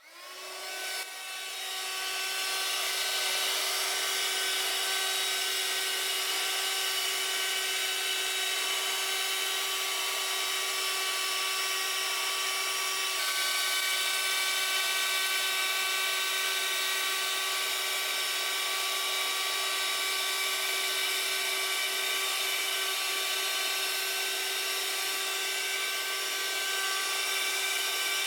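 Parkside PHSSA 20-Li C1 20 V cordless hand-held vacuum cleaner switched on, its motor spinning up over about two seconds and then running steadily with a whine over a rush of air.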